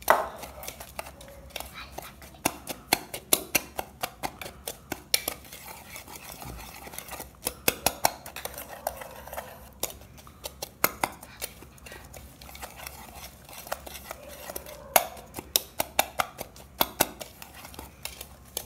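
Wire hand whisk stirring a dry cake mix of flour and brown sugar in a pan, its wires clicking and scraping against the pan in quick, irregular runs of taps.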